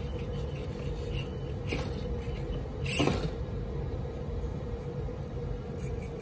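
Axial SCX24 RC crawler's small electric motor and gear drive whining steadily as it crawls over wood, with a few knocks from the tyres and chassis on the boards, the loudest about three seconds in.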